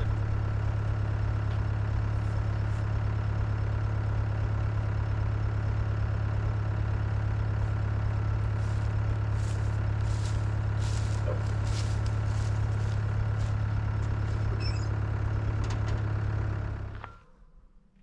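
Stihl MS 661 two-stroke chainsaw engine running at a steady speed, then shut off about 17 seconds in.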